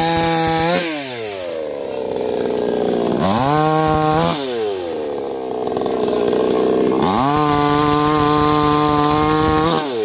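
HP 60cc two-stroke gasoline chainsaw revved to full throttle three times while cutting mango tree branches: the pitch climbs fast, holds high for about a second, then about a second, then nearly three seconds, and drops back toward idle between.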